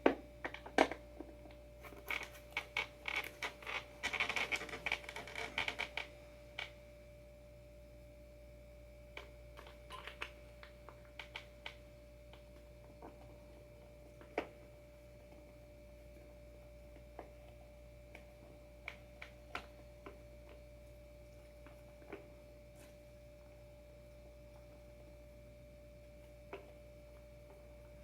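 Small metal hardware and a tool clicking and rattling while skateboard truck bolts are being removed: a dense run of clicks for a few seconds near the start, then scattered single clicks. A faint steady electrical hum runs underneath.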